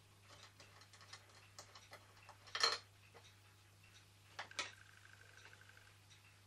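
Light clicks and taps of metal parts of a 1929 Meccano toy steam engine being handled at its base and burner, with a louder clatter about two and a half seconds in and two more knocks near four and a half seconds.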